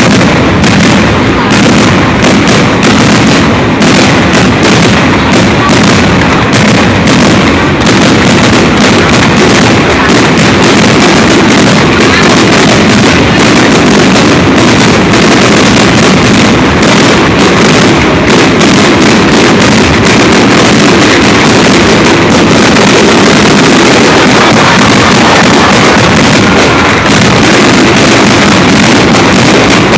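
Fireworks display: a continuous, rapid barrage of bangs and crackles, very loud throughout.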